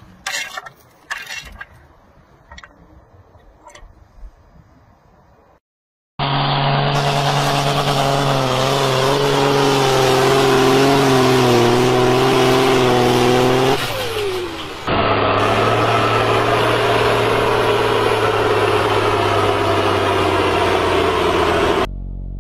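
Faint clicks from a hot-stick cable-stripping tool working on an overhead power line. After a sudden cut, tractor engine noise takes over and is loud and steady, with wavering pitch and a brief falling whine about 14 seconds in.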